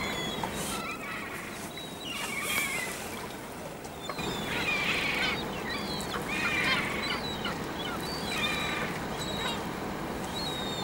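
Gulls giving a series of short, harsh calls, one every second or two, over a steady low background rumble.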